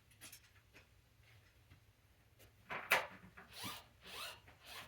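Short scraping and rubbing sounds of bike parts being handled and fitted, a few faint clicks at first, then a louder scrape about three seconds in followed by several more rasps.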